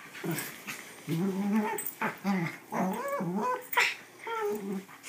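Two dogs play-wrestling, growling and grumbling in short rising and falling bouts, with one short sharp yip a little under four seconds in.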